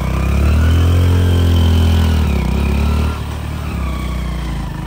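Motorcycle engine being ridden on a rough lane. It pulls under throttle with its pitch rising and then falling, and about three seconds in it drops quieter as the throttle eases.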